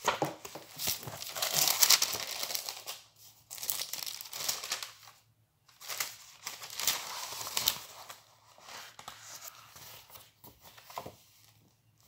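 Thin Bible pages being leafed through, crackling and rustling in several bursts, then quieter handling near the end as the passage is found.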